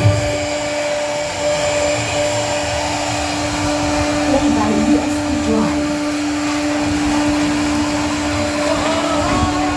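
An electric motor on a workshop machine running steadily, a constant whine over a loud rushing noise.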